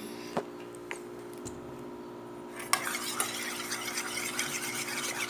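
A utensil stirring and scraping a runny mix of glue and detergent in a container for homemade slime, with quick light clicks and scrapes starting about halfway in. A few small clicks come before it, over a faint steady hum.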